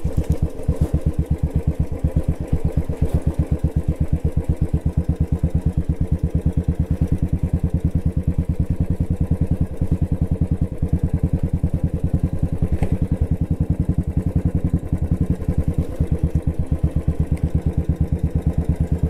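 Royal Enfield Bullet's single-cylinder four-stroke engine running at low, steady revs, with an even beat of firing pulses that does not change speed.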